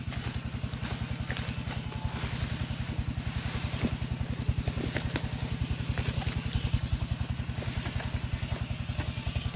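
A small engine running steadily with a fast, even chug, and a few faint clicks over it.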